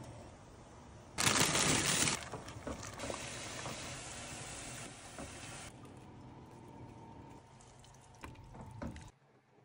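Liquid pouring into a pot of soup: a loud splashing pour about a second in, then a quieter, steady stream that stops a little past halfway. A few faint clicks follow near the end.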